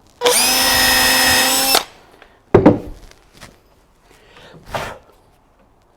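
Power drill-driver running steadily for about a second and a half as it drives a screw down through a wooden stair tread into the support block below, followed by a sharp knock and a shorter noise later.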